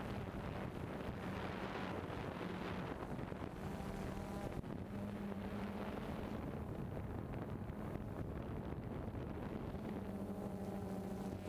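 Steady hum of a small multirotor drone's motors and propellers, heard from the camera it carries, with a low tone that swells and fades a little as the craft manoeuvres and a rushing hiss of wind on the microphone.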